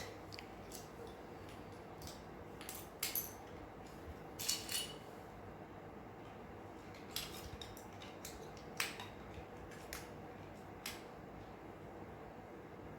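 Scattered clicks and light clatter of plastic Lego bricks being handled and pressed together, a sharp click every second or so, over a faint steady hum.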